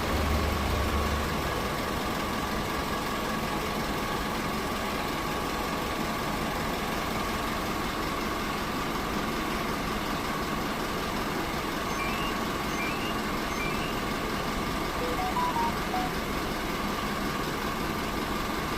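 Hyundai Mighty light truck's diesel engine idling steadily just after a remote start, a little louder for the first second before settling.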